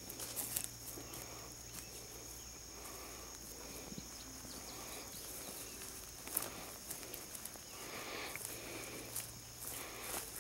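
Footsteps swishing through grass, with a steady high-pitched insect drone behind them.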